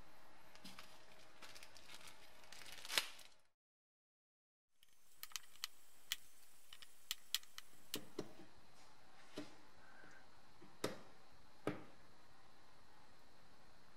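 Small, sharp metal clicks from circlip pliers working the retaining clip of the pressure-relief valve in an M20B25 oil pump housing, coming singly at uneven intervals. The sound cuts out for about a second a third of the way in.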